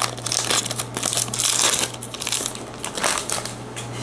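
Foil wrapper of a Pokémon booster pack crinkling and crackling in the hands as it is worked open, in quick irregular bursts that ease off near the end.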